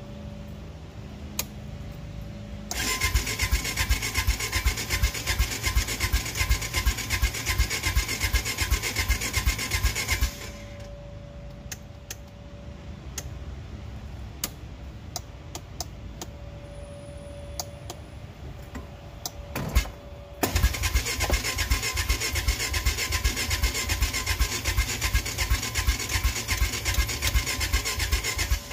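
Honda Foreman ATV's single-cylinder engine cranked over twice, each time for about eight seconds with a pause between, in a rapid even beat that never catches. The engine will not start, which the owner puts down to a clogged carburetor.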